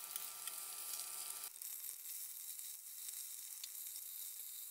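Pollock roe (myeongran) frying in a little oil in a pan: a faint sizzle with small scattered crackles.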